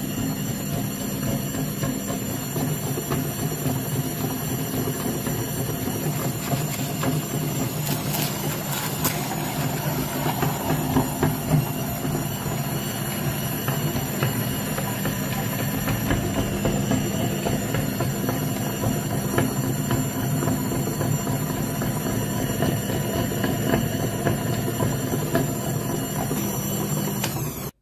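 Electric meat grinder running steadily, its motor humming, with many small clicks and cracks as material is forced through; it cuts off suddenly at the end.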